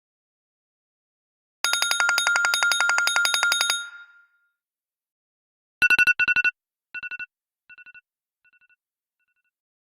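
iPhone ringtones played in turn. First comes a rapidly pulsing high tone that lasts about two seconds and fades out. Then, after a pause, a quick cluster of beeps repeats several times, each repeat fainter, like an echo dying away.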